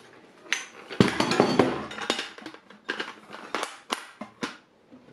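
Steel ammo cans and a loose lid being handled: a quick run of sharp metal clacks and knocks starting about a second in and lasting a few seconds, the loudest at the start.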